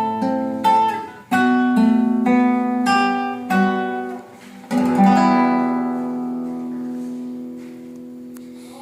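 Matsuoka M50S Japanese classical guitar being played: a run of plucked notes and strummed chords, ending on a chord struck about five seconds in that rings on and slowly fades.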